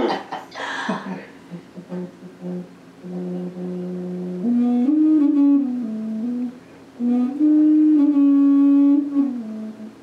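Clay ocarina, a round vessel flute, played slowly: long, low, held notes stepping up and down, with a short break about two-thirds of the way through. It is heard over a video call.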